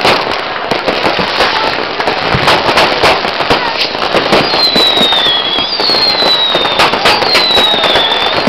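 Massed fireworks and firecrackers going off all around: a dense, unbroken run of bangs and crackling. From about halfway a high whistle falling in pitch comes again and again, roughly once a second.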